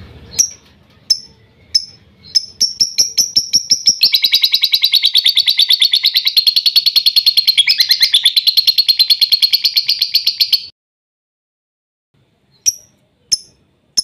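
Lovebird calling: a few single sharp chirps that speed up into a long, rapid rattling trill of about six seconds, the ngekek song that keepers play to set other lovebirds singing. The trill stops abruptly, and after a short silence a few single chirps follow.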